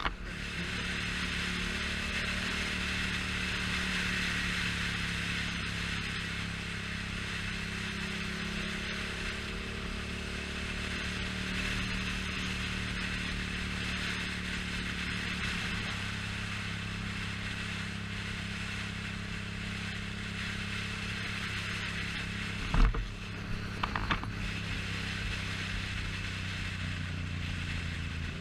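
Yamaha FZ-07's parallel-twin engine running steadily while riding, with a rushing haze of wind noise. Late on there is a single sharp thump, the loudest moment, and a second later a couple of lighter knocks.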